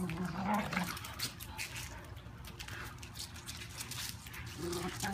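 Two small dogs scuffling on a concrete pool deck: faint, irregular clicks and scrapes of paws. A person's voice is heard briefly at the start and again near the end.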